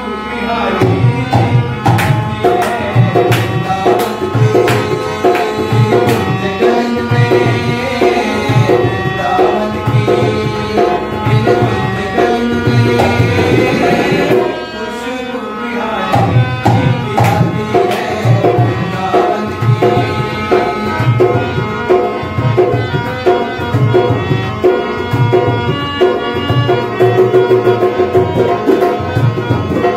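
Dholak playing a steady devotional rhythm under a harmonium melody, with a man singing. About halfway through the drum drops out for a moment, then comes back in.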